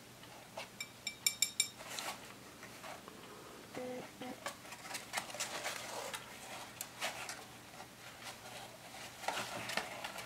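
Pet rats stirring and climbing in a cardboard box house on a wire cage shelf: scattered rustles, scratches and clicks as a hairless rat crawls out over the wire and knitted fabric. A quick run of light clinks about a second in.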